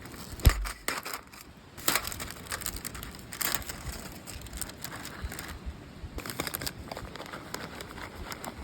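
Close handling noises: a sharp thump about half a second in, a knock near two seconds, then irregular crackling and crinkling clicks.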